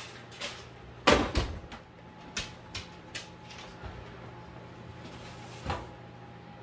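Metal baking pans and the oven rack clattering and knocking as pans are pulled out of an open oven: a loud clatter about a second in, a few lighter clicks after it and one more knock near the end. A steady low hum runs underneath.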